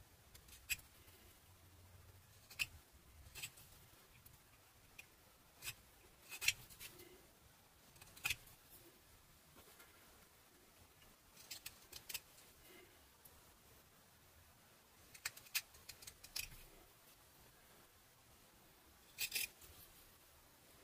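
Whittling knife taking small slicing cuts in butternut wood: a series of short, sharp cuts at irregular intervals a second or two apart.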